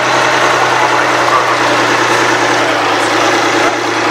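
Kirovets K-700A articulated tractor's 240 hp diesel engine running steadily under load as it drags the tractor-pulling sled.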